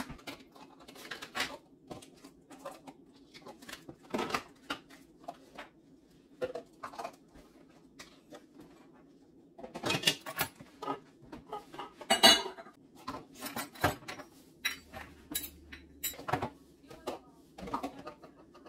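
Kitchen utensils, plastic containers and lids being picked up and set down on a countertop: irregular clattering and clinks, sparse at first and busier from about ten seconds in, loudest at about twelve seconds.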